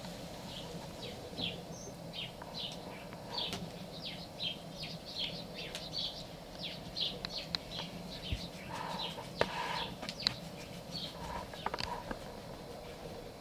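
Small birds chirping, short high notes repeated about twice a second, with a few sharp clicks among them.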